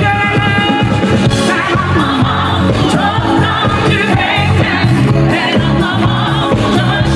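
Live pop band playing, with a woman singing lead into a microphone over drums, percussion and guitars.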